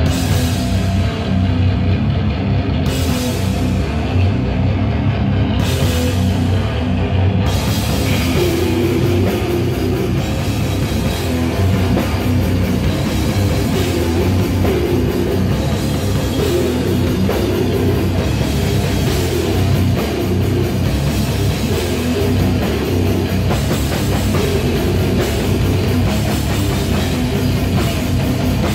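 A grindcore band playing live and loud: distorted electric guitars and bass over a drum kit. There are a few separate cymbal crashes in the first seven seconds, then a continuous cymbal wash for the rest.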